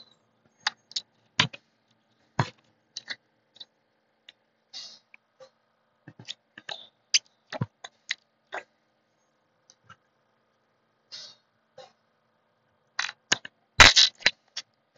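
Putty-like slime worked in its small plastic cup, giving scattered short wet pops and clicks, the fart noises of noise putty. They come every second or so, with a quicker, louder cluster near the end.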